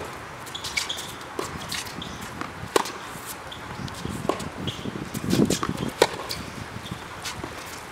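A tennis rally on a hard court: sharp racket-on-ball strikes and ball bounces every second or so, with footsteps on the court between shots. The loudest strike comes about six seconds in.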